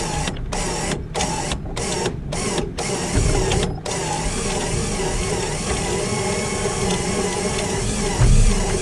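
A 3,500 lb electric winch running under load, reeling in its cable as it drags a large log across a wooden trailer deck. The motor's whine is choppy for the first few seconds, then steady, with a low thud about three seconds in and another near the end as the log bumps on the boards.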